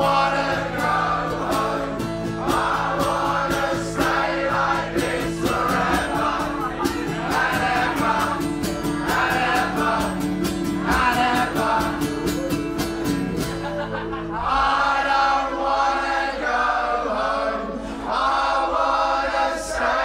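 A live band with acoustic guitar and a crowd singing along together in chorus over a steady beat. About fourteen seconds in the bass and beat drop out and the massed voices carry on almost alone.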